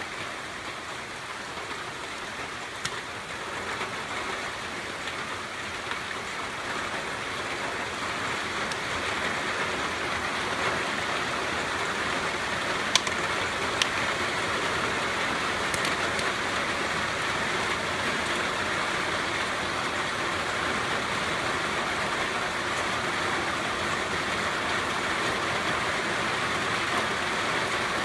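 Steady rain shower falling on leaves and grass, growing heavier over the first several seconds and then holding steady, with a few sharp ticks.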